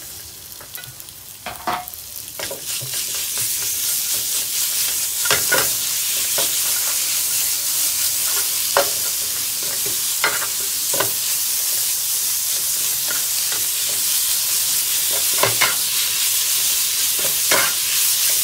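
Sliced beef and bitter melon sizzling in a hot skillet, the sizzle building over the first few seconds as the raw beef heats, then holding steady. A spatula stirs the meat around the pan with irregular knocks and scrapes.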